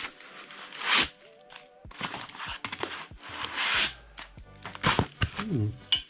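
Packaging rustling and tearing in short noisy bursts, with a couple of louder ones, over steady background music.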